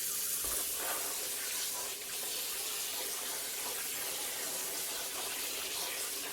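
Hot water running steadily into a container to make a citric acid solution for de-rusting.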